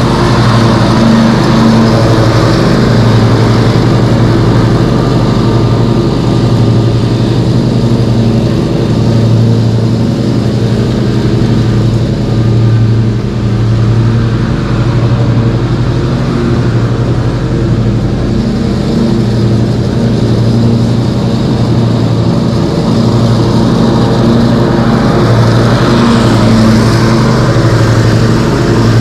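Gas lawn mower engine running steadily at working speed, a constant engine drone whose level swells and dips slightly.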